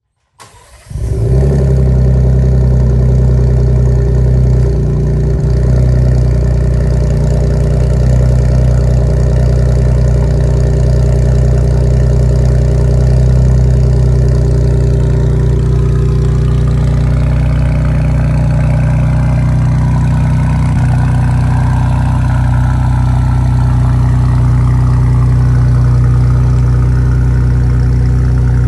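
Ford Bronco 2.7 L twin-turbo V6 with its muffler deleted, cold-started: the starter cranks briefly, the engine catches about a second in, then idles steadily and loudly through the open exhaust.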